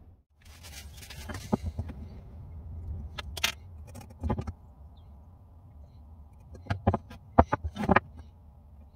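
Scattered clicks and light knocks of a combination square, pen and small wooden blocks being handled and set down on a plywood workbench while the centres of the blocks are marked out. A quick run of louder knocks comes about seven to eight seconds in.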